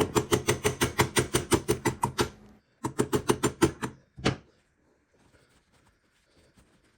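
Hammer tapping a pin back into a KitchenAid Artisan stand mixer: a fast run of light metal taps, about eight a second, then a short pause, a second run and one last tap.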